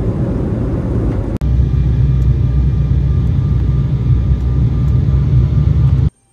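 Steady drone of engines and airflow heard inside a jet airliner's cabin in flight. It breaks off briefly about a second and a half in, comes back louder, and stops abruptly near the end.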